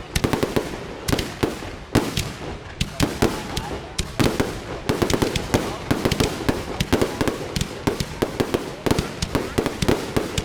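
Fireworks display going off: a rapid, irregular run of sharp bangs, several a second.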